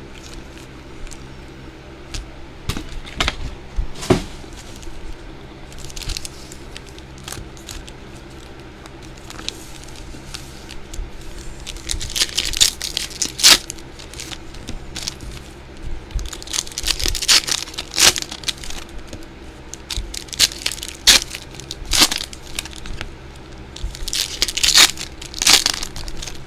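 Trading card box and pack wrappers being torn open and crinkled by hand: irregular ripping and rustling of plastic and foil, with scattered sharp clicks and taps. The busiest handling comes about halfway through and again near the end.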